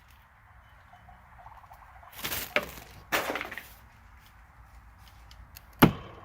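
Rustling and scraping from a person clambering through a tight attic opening, in two short stretches, then one sharp knock near the end.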